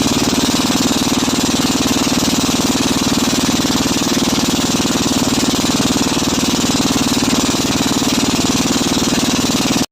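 Engine of a motorized bangka (outrigger boat) running loud and steady at constant speed, with a dense, even drone. This is the engine noise recorded for the third test of the noise-to-electricity device. It cuts off abruptly near the end.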